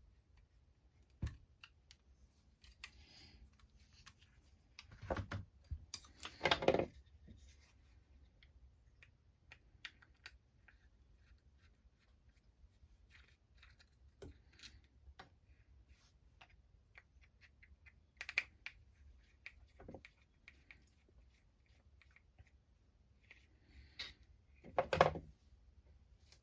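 Small plastic and metal RC car parts and tools handled on a workbench: scattered light clicks and ticks, with louder clatter about five to seven seconds in, a short knock a little before 20 seconds, and another clatter near the end.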